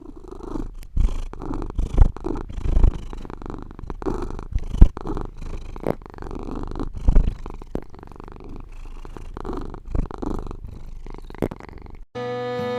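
A cat purring close into a tiny microphone, the purr swelling and fading with each breath, with several sharp knocks and rubs on the microphone.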